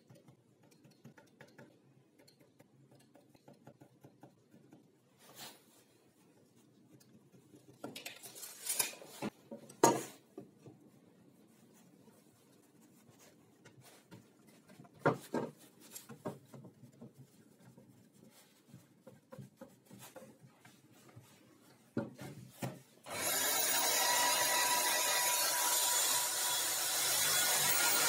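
Faint pencil scratching and rubbing on a wooden board, with a few knocks as the board and bar clamps are handled. About 23 seconds in, a corded electric drill in a drill stand starts suddenly and runs steadily while boring into the board, the loudest sound here.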